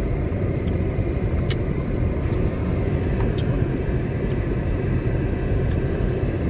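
Car driving along an unpaved dirt track, heard from inside the cabin: a steady low rumble of engine and tyres on the rough surface, with a few light clicks scattered through it.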